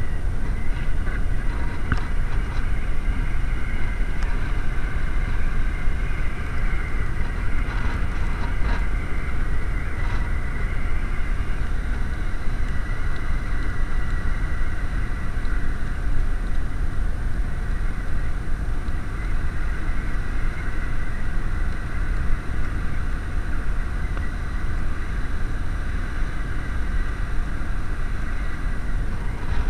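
Strong wind buffeting the camera's microphone: a steady, heavy low rumble with no let-up.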